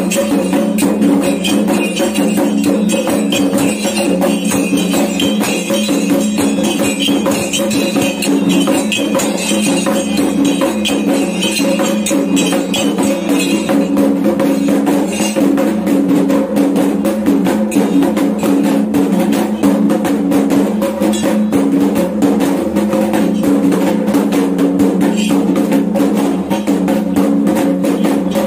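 Kendang drums beaten in a fast, unbroken rhythm as ritual drumming for a Dayak belian healing rite, over a steady ringing tone. Metallic jingling runs with the drums and stops about halfway through.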